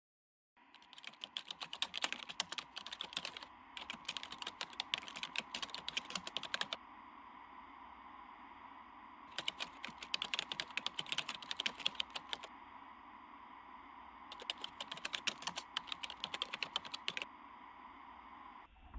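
Rapid typing on a computer keyboard in four bursts of about three seconds each, over a steady faint hum.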